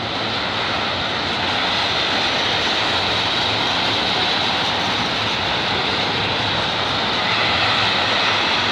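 Freight train of tank cars rolling past, a steady, unbroken rolling noise from the passing cars.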